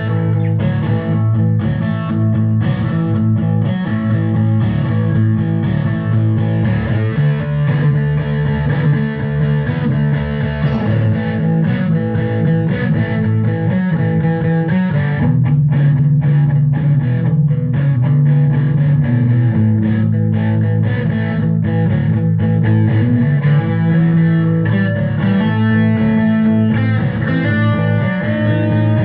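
Background music, a guitar-led rock track with electric guitar and bass.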